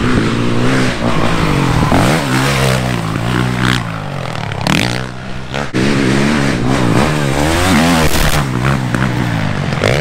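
Dirt bike engine being ridden hard, revving up and dropping back over and over as the throttle is worked, with wind rush on the microphone.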